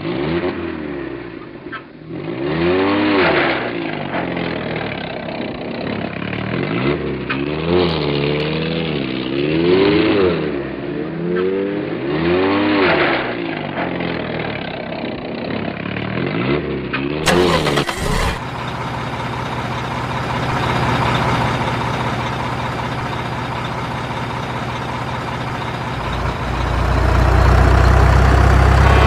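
A truck engine revving up and down over and over, its pitch rising and falling about every two seconds. After an abrupt change about two-thirds of the way through, the engine runs more steadily, and near the end it turns louder and deeper.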